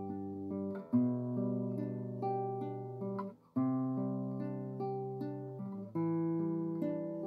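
Background music played on acoustic guitar: slow picked chords that ring out and fade, with a new chord struck about every two and a half seconds.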